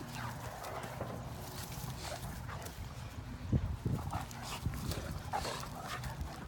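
Two Great Danes play-wrestling: low dog vocal sounds mixed with scuffling on grass, and one louder bump about three and a half seconds in.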